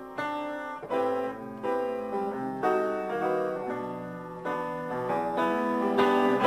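Upright piano playing a slow waltz, a melody over chords with each note struck and left to ring.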